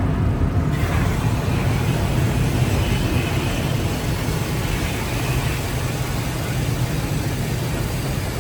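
A car running with a steady low rumble and an even hiss of air or road noise that grows stronger about a second in.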